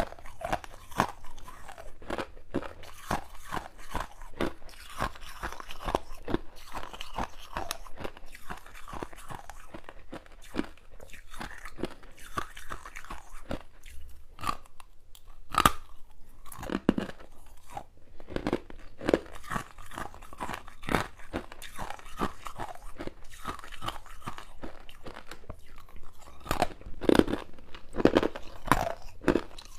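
Close-up crunching and chewing of mouthfuls of freezer frost, many irregular crisp crunches a few times a second, with a brief lull about halfway and louder bites near the end.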